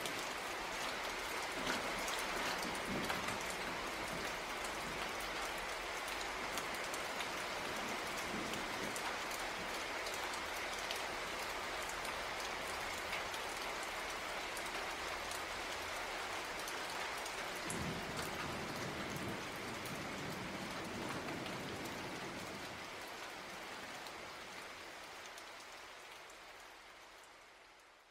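Steady rain falling, fading out over the last few seconds.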